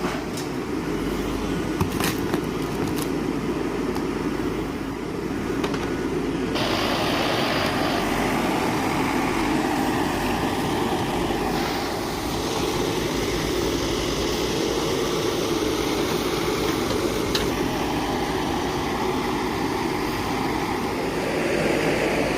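Diesel engine of an Escorts Digmax II backhoe loader running steadily, with a few knocks in the first few seconds. About six seconds in, the sound grows louder and brighter and stays that way.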